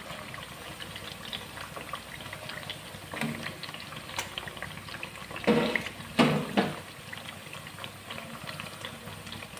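Cassava fritters deep-frying in hot oil in a wok: a steady fine sizzling and crackling while they are lifted out with tongs. Three short, louder sounds come a little past halfway.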